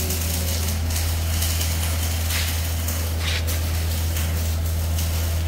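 Steady low hum of a running grinding machine, the pulverizer's motor, holding an even level throughout, with a few faint crackles over it.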